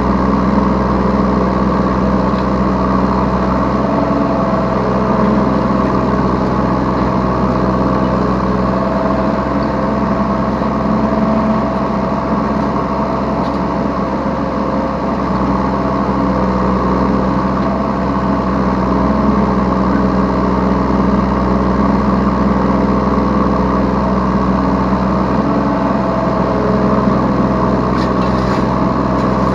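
Yanmar B3Σ 3-ton mini excavator's diesel engine running steadily under the operator's seat, with small rises and dips in load as the hydraulics work.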